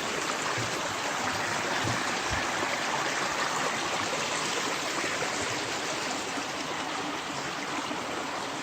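Small woodland stream running over rocks at a little waterfall where the trail crosses it: a steady rushing and splashing of water.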